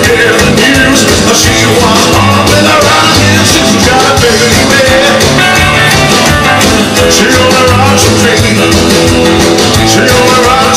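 A rock and roll record playing loud: a full band with a steady beat.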